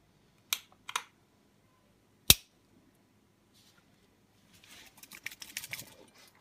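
A plastic glow stick being bent to snap its inner glass vial: two small cracks, then one sharp, loud crack a little over two seconds in. Near the end comes a rapid, scratchy rattling as the activated stick is shaken to mix its chemicals.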